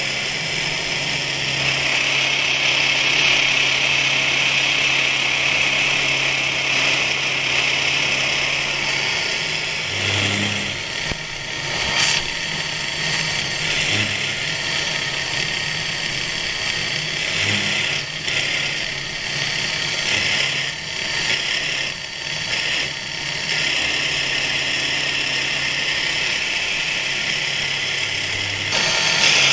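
Knee mill side-milling steel with a 12 mm carbide end mill at 1500 rpm: a steady cutting hiss over the hum of the spindle and drive. The cutting sound changes briefly about ten seconds in, with a sharp click at about twelve seconds.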